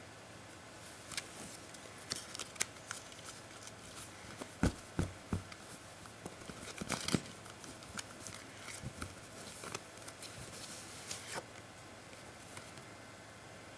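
Playing cards being handled: cards spread, slid off the deck and dealt onto carpet, making scattered light snaps and rustles, with a few dull knocks about five and seven seconds in.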